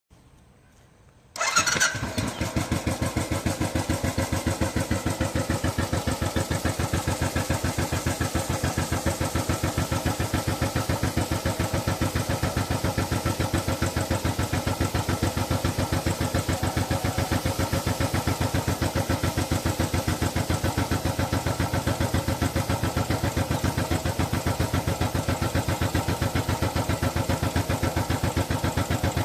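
Royal Enfield Bullet single-cylinder motorcycle engine starting about a second and a half in, then idling with a steady, even thump.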